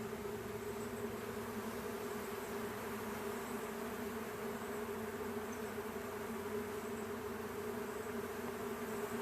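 Honey bees buzzing in a steady low hum from a hive with its top off.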